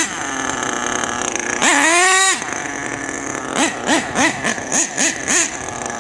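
HPI Savage X 4.6 nitro RC truck's small two-stroke glow engine idling, then revved once in a rising whine about two seconds in. In the second half it gives a string of about seven quick throttle blips.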